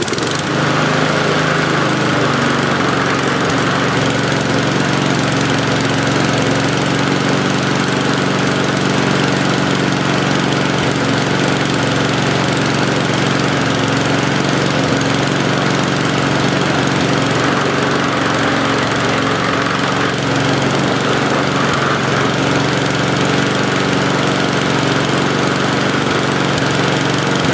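Mountfield SV150 single-cylinder lawnmower engine catching and settling within a couple of seconds to a steady, even running speed. It runs evenly without revving up and down, the hunting cured by the idle speed screw adjustment.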